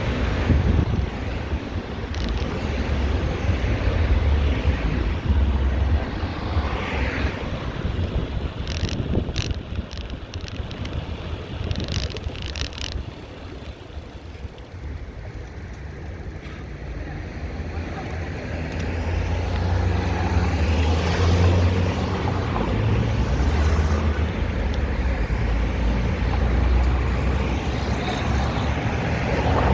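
City street traffic heard from a moving bicycle: a steady low rumble of passing cars. It eases off about halfway through, then builds again as more traffic comes by, with a few short clicks and rattles in the middle.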